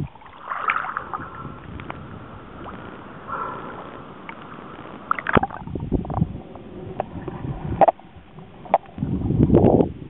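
Muffled water sloshing and gurgling around an underwater camera housing, with scattered sharp clicks and a louder low rumble near the end.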